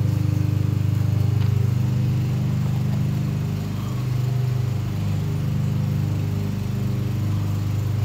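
A steady low mechanical hum from a running motor, its pitch wavering slightly about halfway through.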